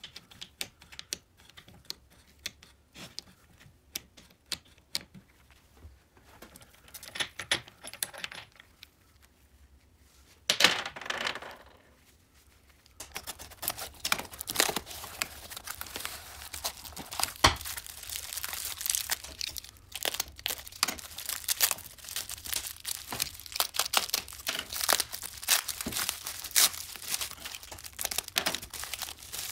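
Scattered light metal clicks and knocks as a moped engine crankcase is handled. From about halfway through, a dense, continuous crackling: a cardboard parcel is slit open with a utility knife and a new part is unwrapped from bubble wrap.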